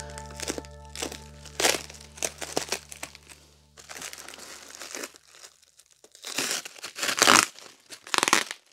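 Clear plastic wrapping crinkling and rustling in irregular bursts as it is handled and unwrapped from circuit boards. A held background music chord fades out about halfway through.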